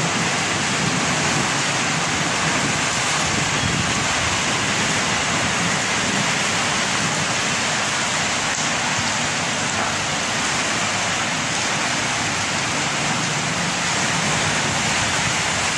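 Heavy rain pouring steadily in a tropical summer storm, an even hiss that holds at one level throughout.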